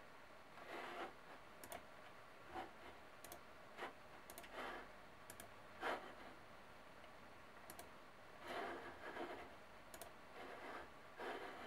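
Faint computer mouse button clicks, scattered and irregular, with a few short scuffing sounds between them.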